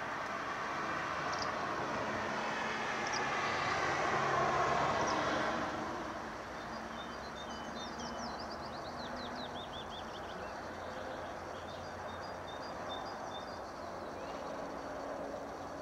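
A passing vehicle's rumble swells to a peak and fades away over the first six seconds. After it, birds sing in the background, with a fast trill about eight seconds in and repeated short chirps to the end.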